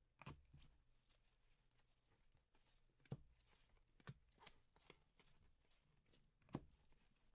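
Faint handling of a stack of trading cards in gloved hands, cards slid and flipped one by one, with a few short sharp ticks.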